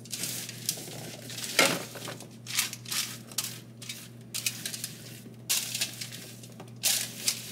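Hands mixing chopped vegetables and chickpeas on a foil-lined baking sheet: aluminium foil crinkling and the pieces rustling and scraping in irregular bursts, over a steady low hum.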